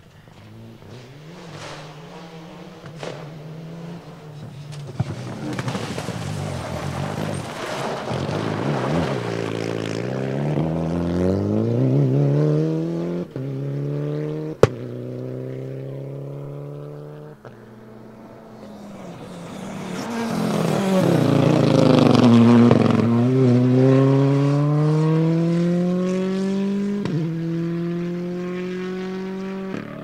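Rally cars at full throttle on a gravel stage, one after the other, engines rising in pitch through the gears with a short break at each gear change. There is a single sharp crack near the middle, and the second car is the louder.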